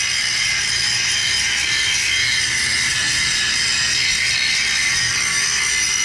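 Angle grinder running steadily under load, its disc grinding into the steel of the chassis and rear suspension and throwing sparks. The high ringing whine holds steady throughout.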